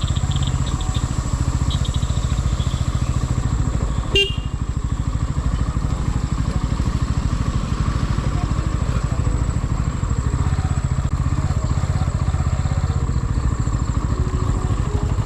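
Motor vehicle running on the move, a steady rumble with rapid fluttering, with a faint high steady whine and a single sharp knock about four seconds in.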